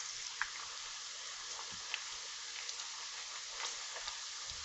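Pork pieces frying in a pot of hot oil: a steady sizzle with a few sharp pops.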